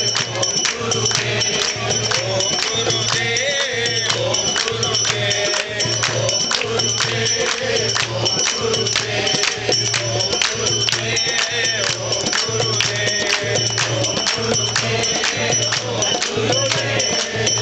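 Devotional group singing with hand percussion: a low beat pulsing a little more than once a second under dense jingling and clicking, with voices singing a melodic line at times.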